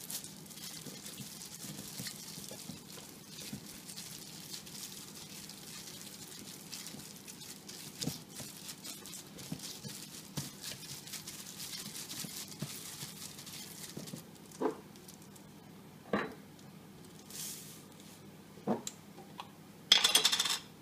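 Raw chicken breasts being rubbed with a spice-and-oil marinade by a plastic-gloved hand in a glass baking dish: a soft, wet rubbing with many small clicks. Toward the end there are a few separate knocks and a short, louder rustle.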